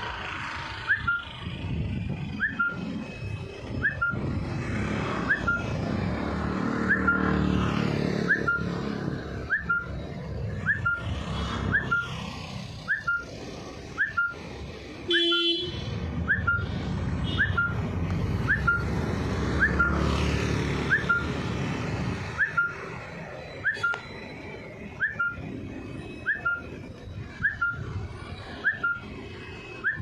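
Street sounds: a short, high rising chirp repeats about once a second throughout, over the rumble of passing road traffic that swells twice. A brief click sounds about halfway through.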